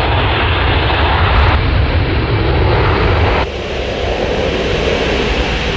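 Fokker 100's two rear-mounted Rolls-Royce Tay turbofans at takeoff power during the takeoff run: a loud, steady rush of jet noise. The level drops abruptly about three and a half seconds in.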